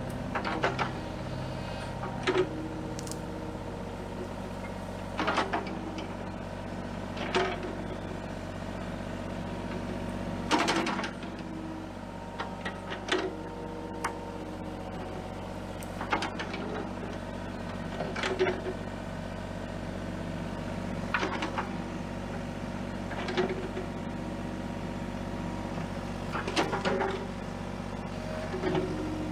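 Kubota mini excavator's diesel engine running steadily under work, with a sharp knock or clank from the bucket and arm every two to three seconds as it digs.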